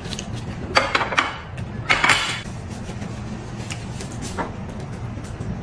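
Close-miked eating noises, with two loud, rough bursts about one and two seconds in, and a few small clicks of dishes and cutlery.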